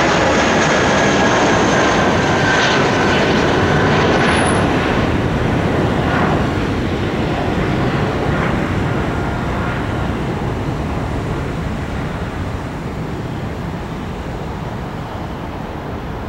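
Airbus A320's twin IAE V2500 turbofan engines at takeoff climb power as the airliner climbs away: a loud jet rumble with whining tones that slide down in pitch over the first few seconds, then slowly fading as it recedes.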